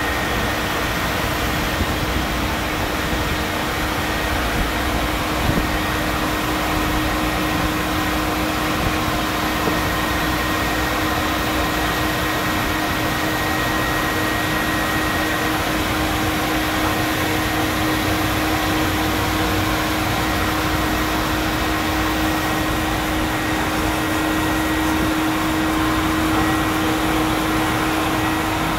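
Rhino-Mat all-in-one floor mat wash and dry machine running with a steady mechanical hum and a thin high whine while a mat is fed through it.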